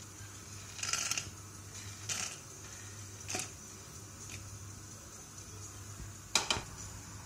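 Peanuts pushed by hand off a plate into a kadai of hot oil, dropping in with several short rattles a second or so apart and a sharper clatter near the end.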